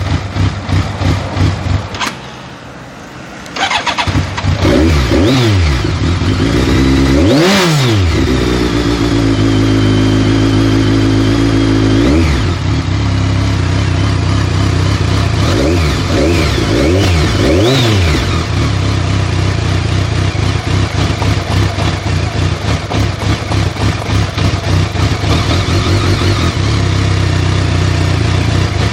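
BMW K1200S inline-four motorcycle engine cranking, pausing, then catching and running. Its revs sag sharply several times and pick back up, then it keeps running unevenly with a pulsing beat. The engine will not start or idle unless the throttle is held open.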